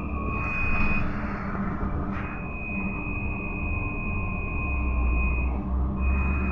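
Trolza-5275.03 Optima trolleybus running along the street, heard from inside at the front: a low rumble with a steady high electric whine over it. The whine drops out for about a second early on and again briefly near the end.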